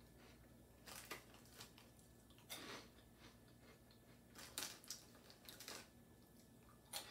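Faint chewing of small, crunchy onion-ring snacks: a handful of short, scattered crunches.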